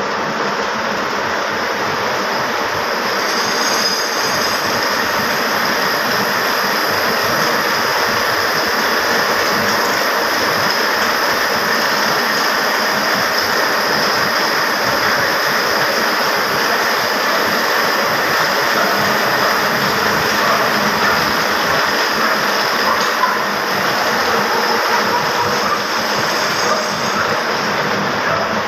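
Loud, steady mechanical clatter of powerloom textile machinery running.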